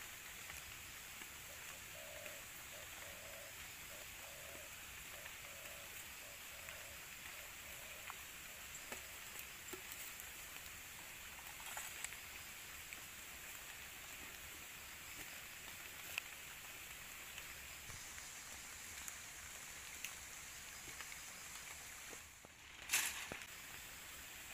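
Prawns simmering in broth in a wok: a faint, steady bubbling hiss with small pops. Near the end, after a brief drop in the sound, a louder short clatter as a block of instant noodles goes into the wok.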